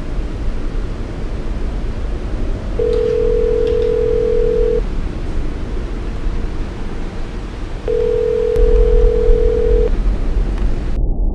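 Mobile phone ringing with an incoming call: a plain steady electronic tone sounds twice, about two seconds each with a pause of about three seconds between, over a steady low hum.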